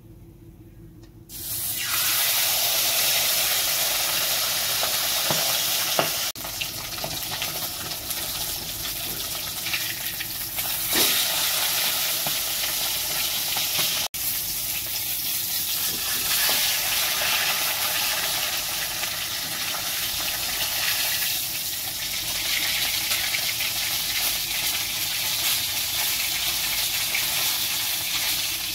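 A piece of marinated fish frying in hot oil in a kadai: the sizzling starts suddenly about a second in as the fish goes into the oil, then keeps on steadily as it fries.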